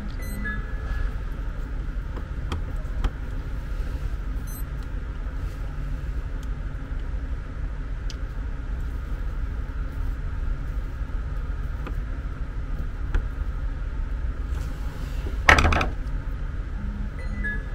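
Faint clicks and ticks of small metal parts being handled as carbon brushes are fitted into the brush holder of a bed-lift linear actuator's motor, over a steady low rumble. One louder short clatter comes near the end.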